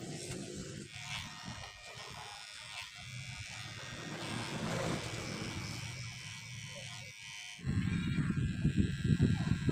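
Electric hair trimmer buzzing as it trims hair around the ear. About seven and a half seconds in, a louder, lower, rougher buzz starts suddenly as an electric hair clipper cuts at the sideburn.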